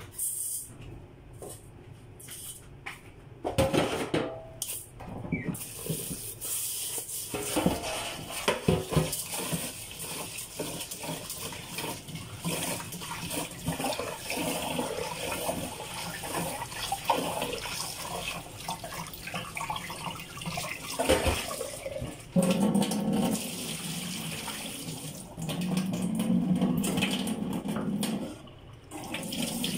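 Kitchen tap running into a metal rice-cooker inner pot as rice is rinsed, with clatter and knocks of the pot in the sink during the first several seconds. From about two-thirds of the way through, the water filling the pot sounds lower and fuller, stopping briefly near the end.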